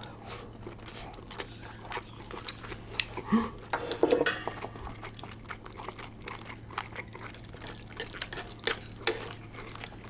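Eating utensils clicking and tapping against a dish while saucy seafood noodles are stirred and picked up, with wet, squishy food sounds between the clicks.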